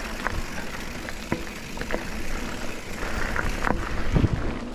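Mountain bike descending a rough downhill trail: a steady rush of tyre and wind noise, broken by sharp clatters from the bike every so often.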